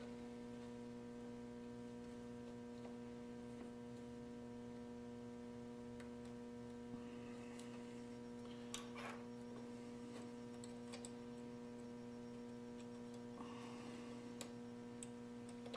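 Steady electrical mains hum made of several tones, with a few faint clicks of small metal parts being handled on a steel plate as a return spring is fitted into a throttle linkage plate.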